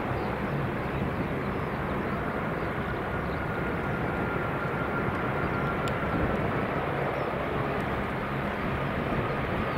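Qantas Airbus A380 with its four Rolls-Royce Trent 900 engines on final approach just before touchdown: a steady rushing jet noise, joined about two seconds in by a faint high whine that sinks slightly in pitch.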